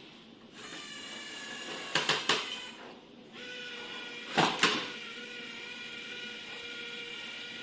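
Electric motors of a remote-controlled gripper-arm robot running with a steady whine of several even tones, stopping briefly about three seconds in and starting again. Sharp clacks come in quick succession about two seconds in and twice more near the middle.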